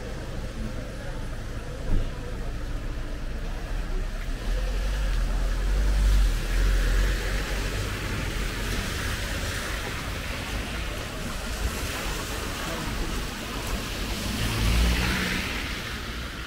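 Street traffic: vehicles passing, with a low engine rumble and tyre noise swelling about five seconds in and again near the end. A single short knock sounds about two seconds in.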